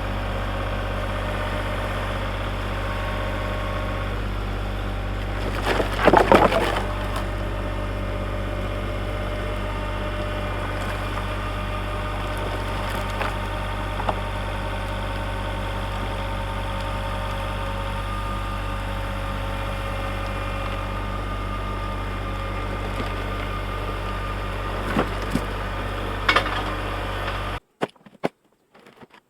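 An engine running steadily with a deep hum. Wood clatters and cracks loudly about six seconds in, and more briefly near the end. The sound cuts off suddenly shortly before the end.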